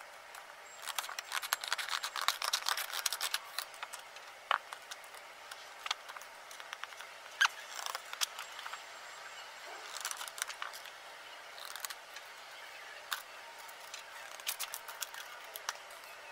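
Scissors cutting a thin clear plastic sheet: runs of short snips and crackles, busiest in the first few seconds and again about ten seconds in, with single snips between.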